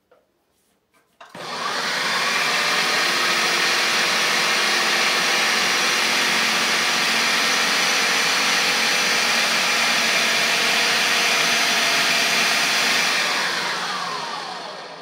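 Countertop food processor motor running on its dough setting, working flour and egg into pasta dough. It spins up about a second in, runs steadily, then winds down with a falling whine near the end.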